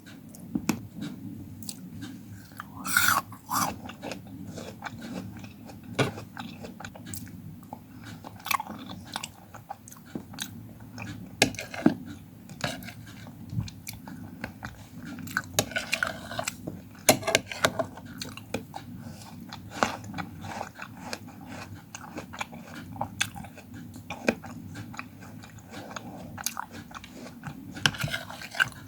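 Close-miked chewing and biting of fruit, with irregular crisp crunches and wet mouth sounds; louder bites come about 3 seconds in, in a cluster around the middle, and near the end.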